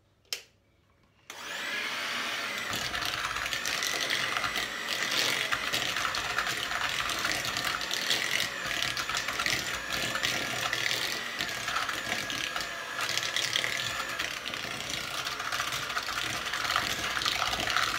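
Electric hand mixer switching on about a second in and running steadily with a high whine, its wire beaters creaming butter and sugar in a bowl.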